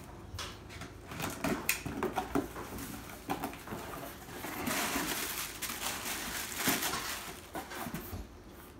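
A box cutter slitting the tape on a cardboard shipping box, with scrapes and clicks as the flaps are pulled open. Then plastic air-pillow packing rustles and crinkles for a few seconds as it is pulled out.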